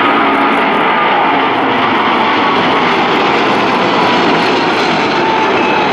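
A Boeing 777-200's twin Pratt & Whitney PW4000 turbofans at takeoff thrust as the airliner climbs out just after liftoff. The jet noise is loud and steady, with faint tones that slowly fall in pitch.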